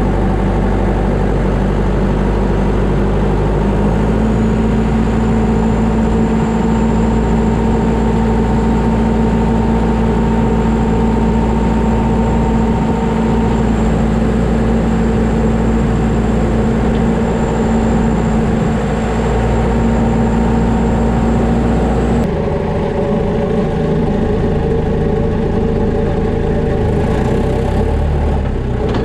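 Farm tractor engine running steadily while driving with a hay bale on the front loader, with a thin high whine over the engine note for much of the time. About four seconds in the engine note steadies at a slightly higher pitch, and the sound changes abruptly a little past twenty seconds in.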